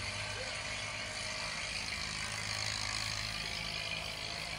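A steady low engine hum, like a motor vehicle idling, under a constant hiss of outdoor background noise.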